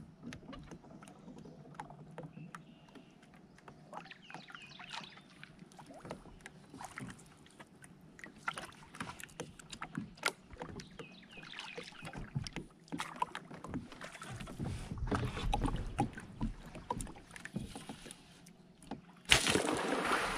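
Kayak paddling: the paddle blade dipping and dripping in the water, with scattered light knocks and clicks of paddle and gear against the NuCanoe Frontier's plastic hull. About a second before the end a sudden, louder rush of noise begins.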